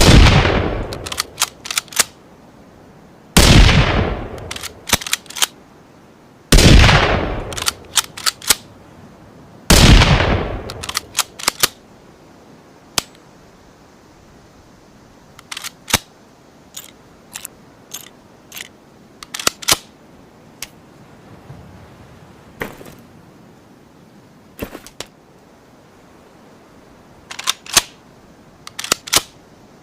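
Ruger American bolt-action rifle firing four shots a little over three seconds apart, each with a fading echo and followed by a quick run of sharp metallic clicks as the bolt is cycled. In the second half there are only scattered groups of bolt and action clicks, with no further shots.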